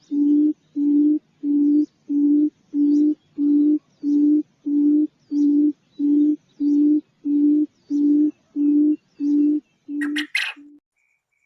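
Quail calling: a long, even series of low hoots, about one and a half a second, each held at the same pitch. Near the end they stop and give way to a short burst of harsh, rapid chattering notes.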